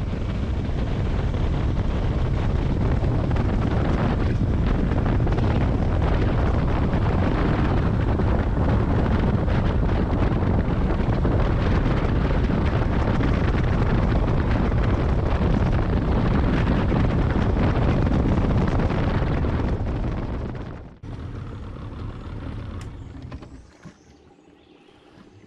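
Johnson outboard motor running at speed on an aluminium jon boat, mixed with wind and water rush. About 21 seconds in the sound drops abruptly as the throttle comes back, and near the end it falls away to a much quieter level as the boat coasts in to the bank.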